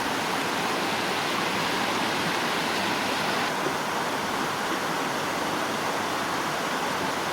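Waterfall rushing steadily, a dense even roar of falling water; its upper hiss shifts slightly about three and a half seconds in.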